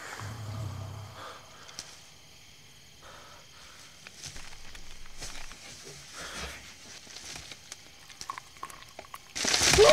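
Faint scattered rustling and crackling in brush and undergrowth, then a sudden loud burst near the end with a falling sweep of tones.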